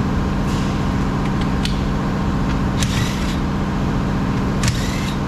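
Screws being taken out of a car door's mirror mount: a few short clicks and brief scraping bursts from the tool and screws, over a steady low mechanical hum.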